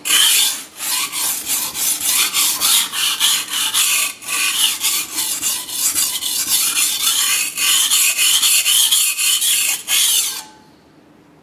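Steel knife blade scraping back and forth on a wet 240 grit Japanese whetstone, in quick repeated strokes of about two a second, stopping abruptly near the end.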